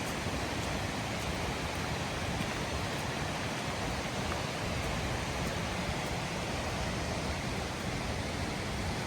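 Waterfall: cascading water rushing in a steady, even hiss without a break.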